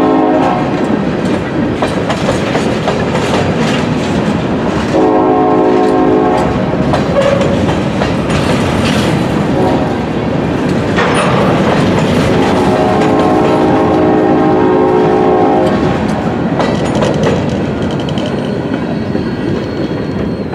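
Freight train of tank cars and covered hoppers rolling past with steady wheel-on-rail rumble and clatter. A locomotive's chord horn sounds three times from the head end, the last blast the longest.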